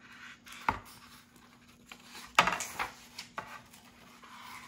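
Pages of a picture book being turned and the book handled on a wooden table: paper rustling with two sharp knocks, the louder one about two and a half seconds in.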